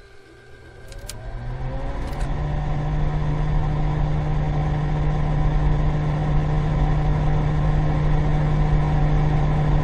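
Sound-effect electric motor spinning up, its hum rising in pitch over the first couple of seconds, then running at a steady whir; two sharp clicks about one and two seconds in.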